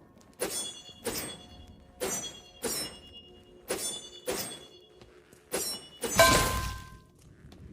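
Katana sword clash sound effects: seven sharp metal-on-metal strikes, each with a bright ringing tail, mostly in pairs, then a longer, louder hit with a noisy tail about six seconds in.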